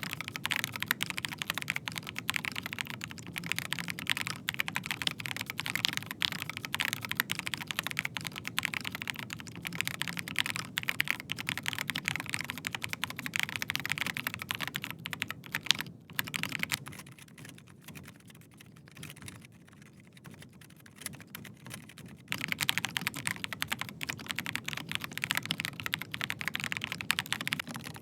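Continuous fast typing on mechanical keyboards, a dense run of key clicks. For the first sixteen seconds or so the board is a Rapture Charlie Ultimate with Gateron Silent Red switches. After that comes a Dark Project ALU Celestial with G3MS Voidstone switches, whose typing is much quieter for about six seconds and then turns dense again.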